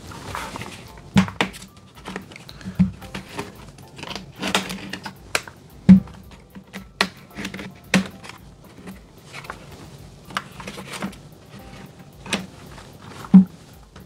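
Plastic retaining clips of an ASUS ROG Strix G614 laptop's bottom panel snapping loose as a plastic opening pick is worked along the seam: sharp clicks and snaps at irregular intervals, the loudest about six seconds in and again shortly before the end.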